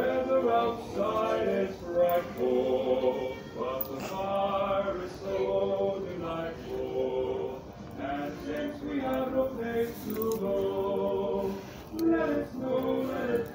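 Choral singing: voices holding long, sustained notes in phrases that break every second or so.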